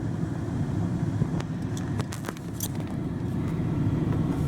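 A van's air conditioner blowing steadily on fan speed 2 inside the cabin, a low even rumble and hum, with a few faint clicks.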